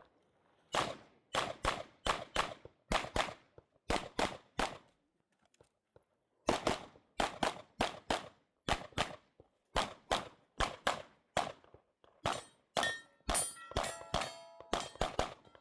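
9mm Glock 17 Gen 5 pistol fired rapidly, mostly in quick pairs, with short pauses between strings. Near the end, struck steel targets ring between the shots.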